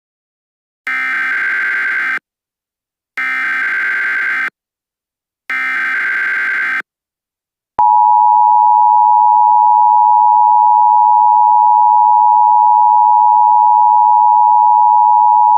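Emergency Alert System SAME header: three short bursts of data tones, each about a second long with a second's gap between, then about eight seconds in the steady two-tone EAS attention signal starts and holds, announcing an emergency alert.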